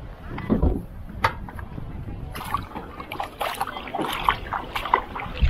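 A hand dipping into lake water and swishing it, with small splashes and trickles from about two seconds in. Under them is a low rumble, and there is a single sharp click about a second in.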